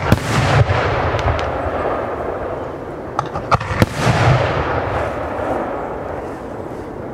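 Aerial fireworks bursting overhead. A sharp bang comes right at the start and a cluster of bangs about three and a half seconds in, each followed by a deep rumble and crackling.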